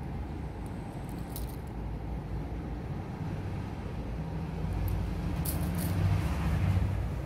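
Steady low background rumble, like traffic or machinery, growing louder in the second half, with a few faint high clicks.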